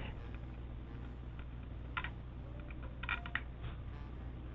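A few scattered keyboard clicks, over a steady low hum.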